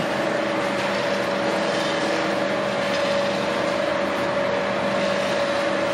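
Automatic egg collection conveyor of a chicken-cage system running: a steady mechanical hum with a constant whine held throughout.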